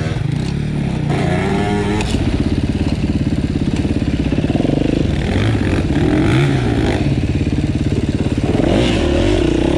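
Off-road motorcycle engine running close to the microphone, revved up and down over and over as the bike is worked through rough ground.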